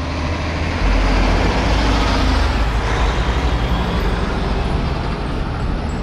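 Loaded car-carrier semi-truck driving past close by: heavy engine rumble and road noise, swelling about a second in and holding steady.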